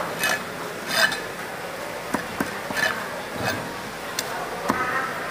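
Cleaver and knife cutting a small tuna on a wooden chopping block: a series of sharp knocks on the block mixed with short slicing strokes, the loudest about a second in.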